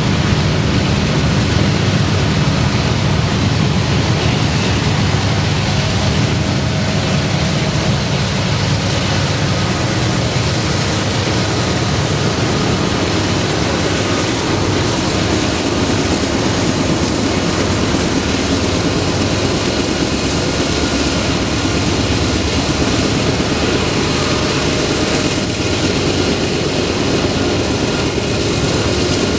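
Freight train passing, led by diesel-electric locomotives. A low engine drone fills the first half, then gives way to a steady, broad rumble.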